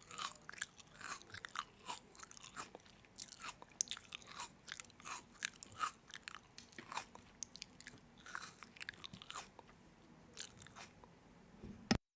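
Someone chewing crunchy food close to the microphone: irregular crisp crunches, several a second. The sound cuts off abruptly near the end.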